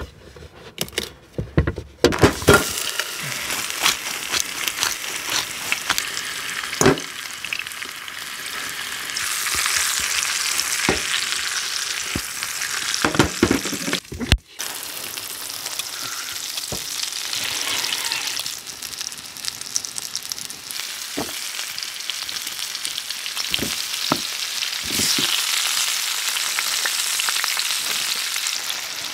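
Food sizzling steadily in a frying pan, with a few sharp clicks at the start and scattered sharp taps, like a knife on a cutting board, over the sizzle.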